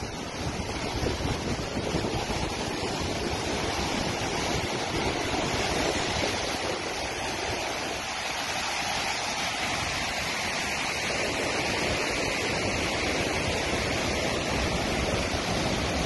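Steady rushing of a waterfall and river rapids, water pouring and churning over rocks.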